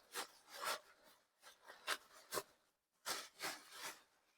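Small plastic parcel being ripped open and handled by hand: a faint series of short scratchy rustling and tearing sounds.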